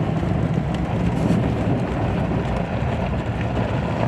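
Lifted GMC Denali pickup truck driving slowly off-road through snow: a steady low rumble of engine and tyres with faint knocks from the rough trail.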